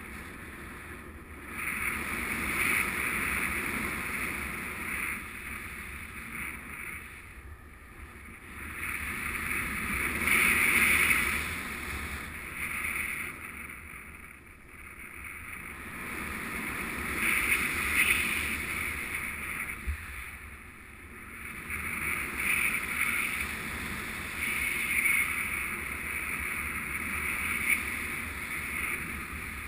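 Airflow rushing over a paraglider's onboard camera in flight, a steady hiss that swells and fades every several seconds.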